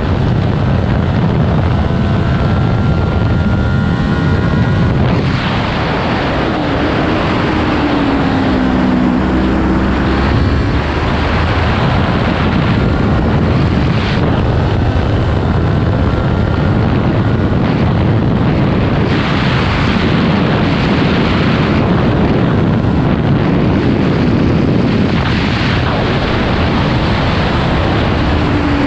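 Heavy wind rush on an action camera's microphone at track speed, over the running of a 2018 Kawasaki Ninja 400's parallel-twin engine with a slip-on exhaust, its pitch rising and falling with the throttle.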